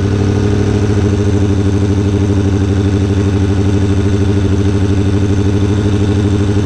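Sport bike engine idling steadily with an even, pulsing throb.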